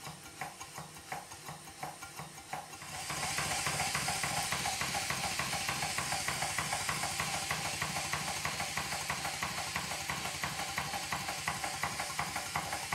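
Twin Stuart 5A model steam engine running on compressed air and speeding up about three seconds in: the exhaust hiss grows louder and a fast, even clunking knock sounds with every turn. The owner suspects the big end or small end of one of the connecting rods.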